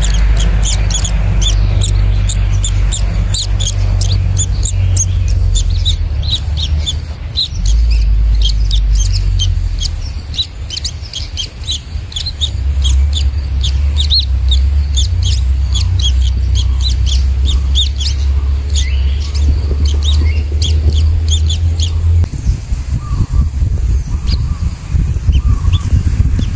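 Rapid, high-pitched begging chirps from newly hatched white-throated kingfisher chicks being fed, stopping about 22 seconds in. A loud, steady low hum runs underneath.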